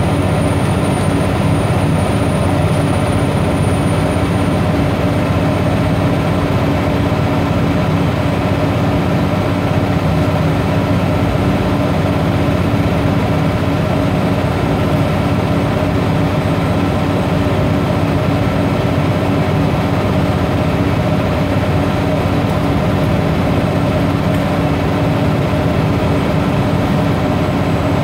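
Scania OmniCity bus engine and drivetrain running steadily under way, heard from inside the rear of the saloon, with a faint high whine that drops slightly in pitch about four seconds in.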